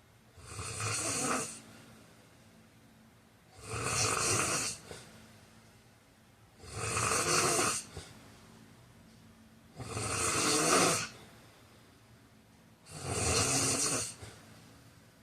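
A man snoring: five loud snores about three seconds apart, each lasting about a second, with quiet stretches between them.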